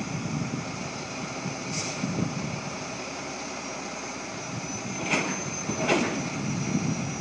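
Steady low rumble and hiss, with three short sharp sounds about two, five and six seconds in, and a faint thin high whine near the end.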